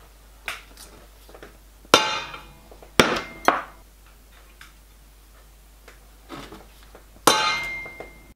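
Hex key clinking against small socket cap screws and the steel die filer housing as the flange screws are turned in. There are a few faint ticks and four sharp, louder metallic clinks that ring briefly: about two, three and three-and-a-half seconds in, and again near the end.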